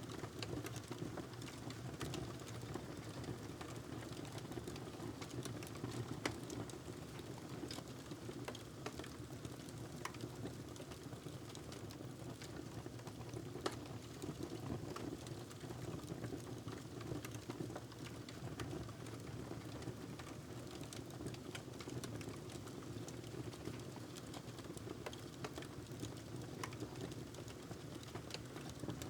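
Wood fire crackling in a fireplace: irregular sharp pops and snaps over a steady low rush of flame.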